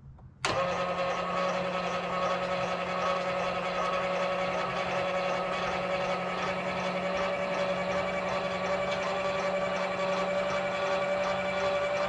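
Electric nose jack on an RV's tongue running steadily as it retracts, lowering the coupler onto the tow vehicle's hitch ball. The motor starts suddenly about half a second in and holds an even whine.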